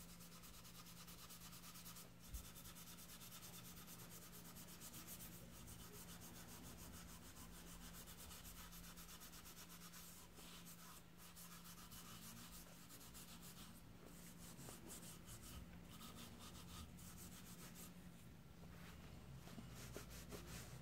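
Faint scrubbing and rubbing: a pad wet with paint stripper worked over the wooden body of an old molding plane to lift old grime, under a low steady hum.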